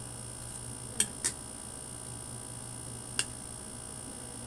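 Sounds of eating: three short, sharp clicks, two close together about a second in and a third near the end, over a steady low hum.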